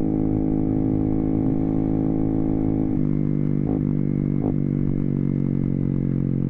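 Yamaha Zuma 125 scooter's single-cylinder four-stroke engine, fitted with a 175cc big bore kit, running steadily while riding at speed. About three seconds in, the engine note drops to a lower steady pitch as the throttle eases off.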